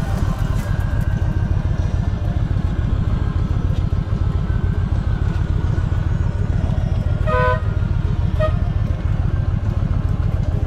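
Yamaha V Star 1300 Deluxe's V-twin engine running on the move, a low, steady pulsing rumble. About seven seconds in, a vehicle horn toots for about half a second, followed by a shorter toot about a second later.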